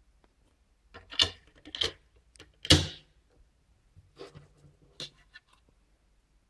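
DVD discs being handled and pressed onto the hub of a DVD case: a handful of sharp plastic clicks and knocks, the loudest about three seconds in.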